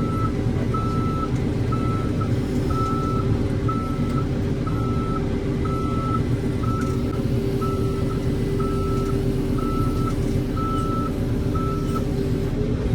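Heavy machine's reversing alarm beeping steadily, a little more than once a second, over a diesel engine running at steady revs; the beeping stops near the end.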